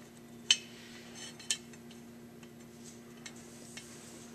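A few light metallic clicks and taps as a steel combination square is set against the carburetor to measure the float drop, the loudest about half a second in and another about a second later, with smaller ticks after. A faint steady hum runs underneath.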